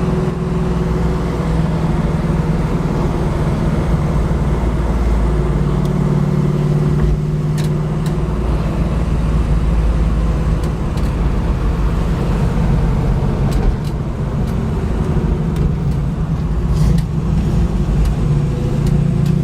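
Rebuilt 350 small-block V8 running through coated headers and a 2.5-inch Flowmaster exhaust while the car is driven. The engine note is steady, with a brief dip about two-thirds of the way through.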